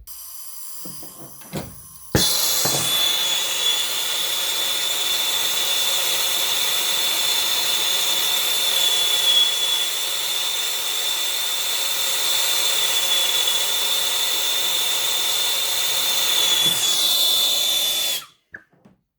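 Brazing torch lit about two seconds in and burning steadily with a loud hiss and a steady high whine, shut off about a second before the end, while brazing the evaporator coil's copper liquid line shut.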